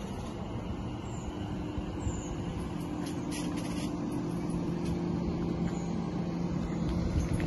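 Greater Anglia electric multiple-unit train standing at the platform, giving a steady low electric hum over a wash of noise, with a few faint clicks partway through.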